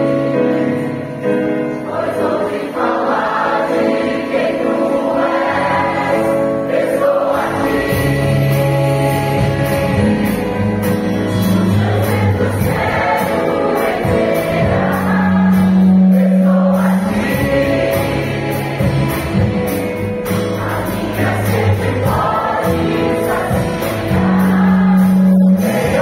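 Large mixed choir of men and women singing a gospel song in harmony with keyboard accompaniment, held chords over sustained bass notes that change every couple of seconds.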